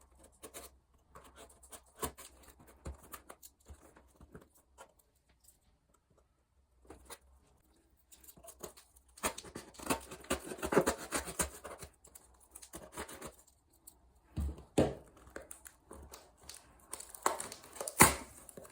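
A package being opened by hand: packaging tearing and rustling, with scattered clicks, a lull of a few seconds near the middle, then busier tearing and crinkling and a couple of sharp knocks.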